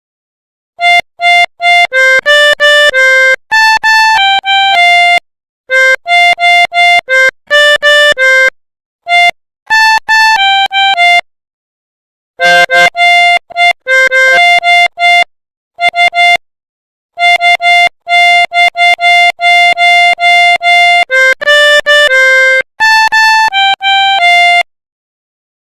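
Pianika (melodica) playing the telolet basuri bus-horn melody: quick runs of clean, steady reed notes in short phrases, with silent gaps between the phrases.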